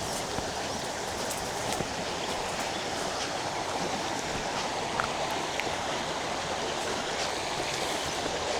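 Steady rushing of flowing water, like a stream, with a few faint clicks.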